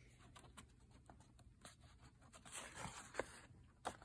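Faint paper rustle of a picture-book page being turned, with a short tap near the end.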